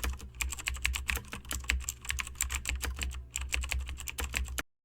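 Rapid typing on a computer keyboard: a dense, irregular run of key clicks over a steady low hum, cutting off abruptly near the end.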